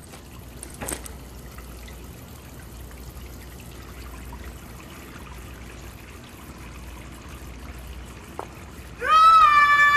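Tap water trickling faintly into a washbasin, with a single click about a second in. Near the end a loud, high, held tone starts abruptly and is the loudest sound.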